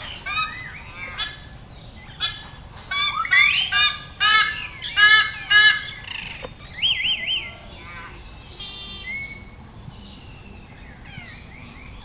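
Several wild birds calling over one another: a run of loud, harsh repeated notes in the middle, then a short looping whistled phrase and quieter scattered calls.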